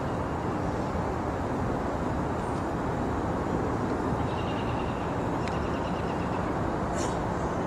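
Steady rumbling background noise with no clear source, with a couple of faint clicks, one about five and a half seconds in and one near the end.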